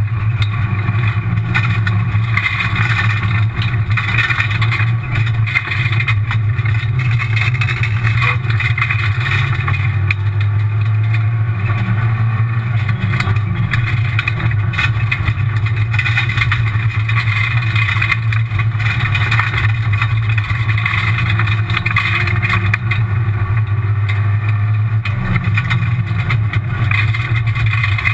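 Rally car driven hard on a gravel road, heard from inside the stripped-out cabin: loud engine under load mixed with steady gravel and tyre noise.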